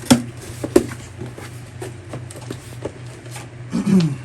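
Handling noise from a refrigerant manifold gauge set and its hoses: two sharp clacks in the first second, then lighter ticks and rustles, over a steady low hum.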